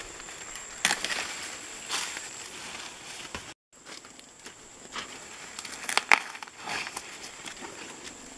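Maize leaves and husks rustling and crackling, with several sharp snaps, as green ears of corn are broken off the stalks by hand.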